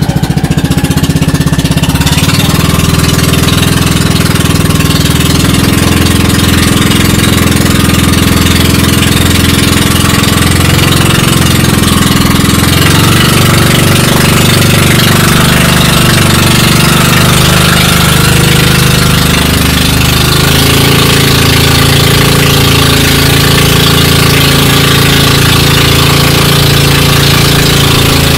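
Engine of a motorised outrigger boat (bangka) running steadily while under way, loud and close, with the engine note shifting slightly about two-thirds of the way through.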